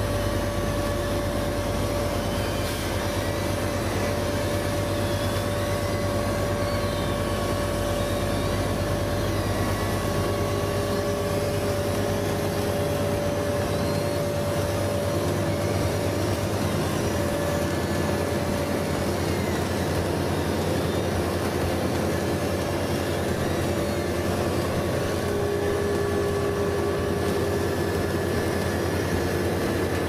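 Tracked asphalt paver running steadily: a constant engine drone with a few held whining tones over it.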